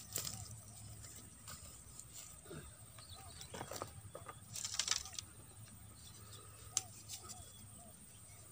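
Quiet outdoor ambience: a steady high-pitched buzz with faint bird chirps. Between about three and a half and five seconds in there are a few rustling knocks, and near seven seconds a single sharp click, the sounds of someone handling gear close by.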